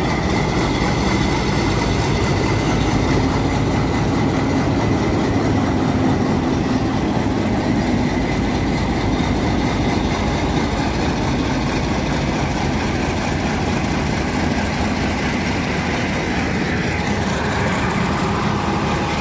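Pakistan Railways diesel-electric locomotive engine running as it pulls a passenger train slowly out of the station, passing close by. The sound is loud and steady throughout, with a faint whine over the engine.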